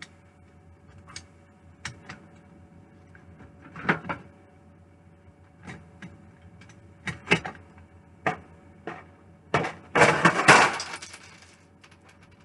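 Kitchen utensils clinking and knocking as a spoon is fetched: scattered light knocks, then a louder clattering rattle lasting about a second and a half near the end.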